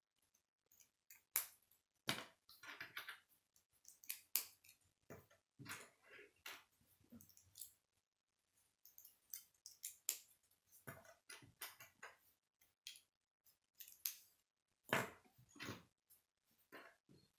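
Hard plastic K'nex pieces clicking and clattering as they are handled and set down on a wooden tabletop: a string of quiet, irregular clicks and taps.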